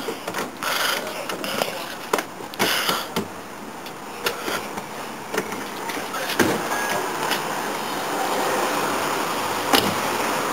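A station wagon's door handle and door being worked: a run of clicks and knocks. A steady noise builds in the second half, and a sharp knock comes near the end.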